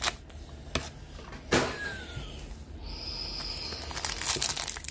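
Foil trading card packs handled on a wooden table: a sharp knock about a second and a half in as the stack is set down, scattered light clicks, then the crinkle of a foil wrapper being worked open near the end.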